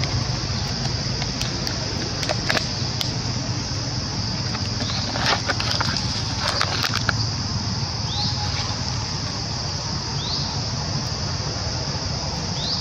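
A steady high-pitched insect drone, with scattered clicks and crunches around the middle and a few short rising chirps.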